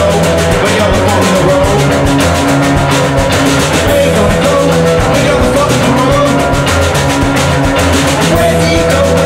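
Rock song playing as background music, loud and with a steady drum beat.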